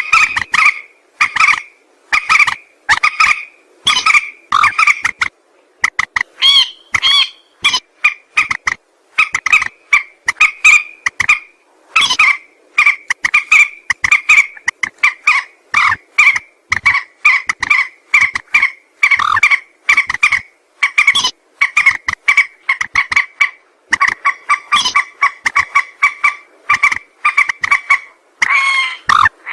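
A rail known locally as mandar sawah calling: a long series of short, clipped, pitched notes, about two a second. The notes come closer together and rise slightly in pitch near the end.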